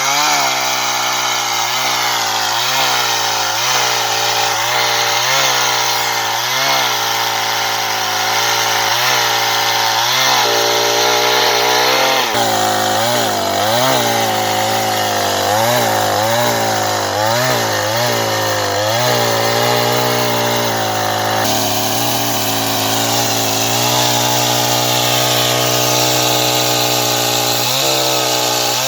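Chainsaw running under load while cutting through logs. Its engine pitch dips and recovers about once a second through the first two-thirds, then holds steadier near the end.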